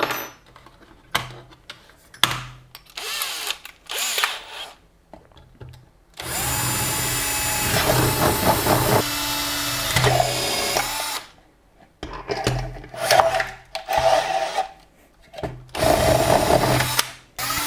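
Bosch cordless drill with an 8 mm bit boring holes through a 3D-printed PLA plastic pot. A few short clicks and bursts come first, then one steady run of about five seconds, then several short bursts near the end.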